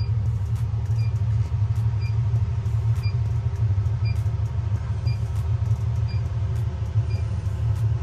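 Steady low hum of a running refrigeration unit, its compressor and fans running, with a faint short high beep repeating about once a second.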